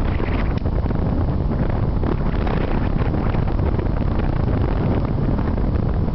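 Strong wind buffeting the microphone: a steady low rushing noise with no breaks.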